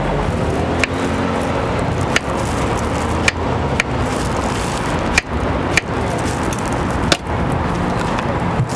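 Steady street-stall background noise with about seven sharp taps spread through it: a kitchen knife striking a cutting board as strawberries are sliced.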